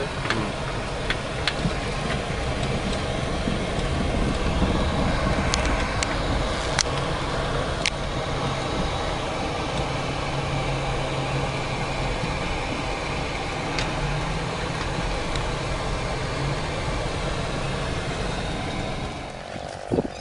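An engine running steadily, with a few sharp clicks over it; the engine sound drops away near the end.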